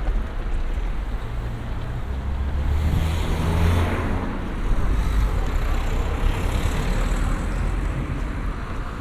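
City road traffic: motor vehicles passing on the street, with one swelling up and fading away about three to four seconds in over a steady low rumble.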